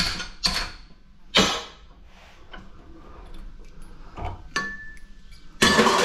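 An adjustable wrench knocking against a ceiling fan motor's metal housing and stator: three sharp blows in the first second and a half, then a few lighter metal clinks, one ringing briefly. A burst of metal clattering near the end is the loudest part.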